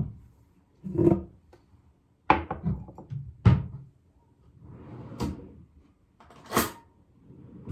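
Everyday handling sounds: a handful of separate knocks and clunks about a second apart, one followed by a quick little clatter, with a soft rustle around five seconds in.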